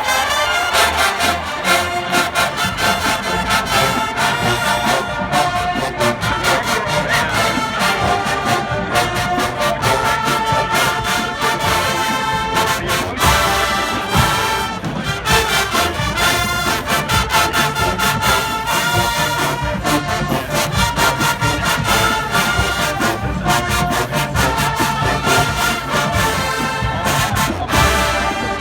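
Large marching band playing at full volume, with trombones and trumpets carrying the melody over a steady drum beat.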